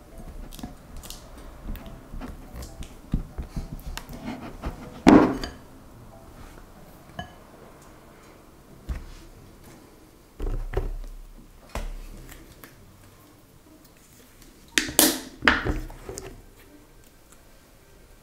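Silicone spatulas stirring and scraping slime in glass bowls, with soft clicks and clatter of utensils against glass and plastic bottles picked up and set down. The loudest are sharp knocks about five seconds in and around fifteen seconds, with a few dull thuds in between.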